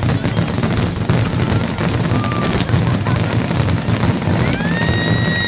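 Fireworks going off in quick succession: rapid cracks and bangs over a continuous low rumble. About four and a half seconds in, a high whistle rises and holds.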